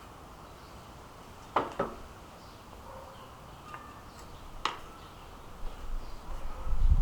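Handling noises while working with tools and wood: a quick pair of sharp knocks about one and a half seconds in, another knock later, then low thuds and bumping near the end.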